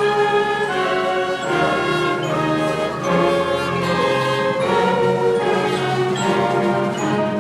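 Concert band playing: sustained brass and wind chords moving to new notes about once a second.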